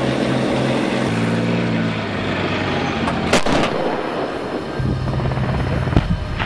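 Simulated engine sound played through a radio-controlled military model's electronic sound unit. It is a steady, pulsing hum that shifts pitch about a second in, drops out briefly and comes back steady near the end. A short sharp burst sounds a little after three seconds.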